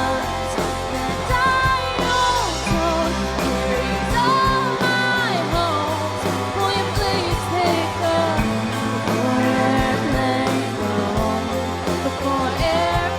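Live band playing a pop-rock song: sustained bass notes under a gliding melodic lead line, with no lyrics picked out.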